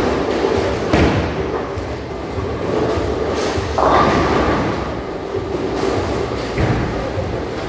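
Ten-pin bowling ball thudding onto the lane about a second in and rolling with a low rumble, then crashing into the pins around four seconds in, over the steady rumble of balls and pins on other lanes.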